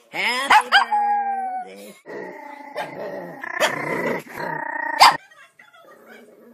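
Dog howling in long drawn-out notes: a rising glide, then held and falling tones, in several calls over about five seconds, the way a dog howls along to a sung tune. A sharp click about five seconds in, after which the howling stops.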